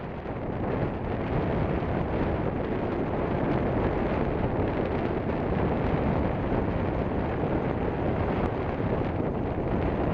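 Wind blowing steadily across the camera microphone, with surf breaking on a sandy beach beneath it.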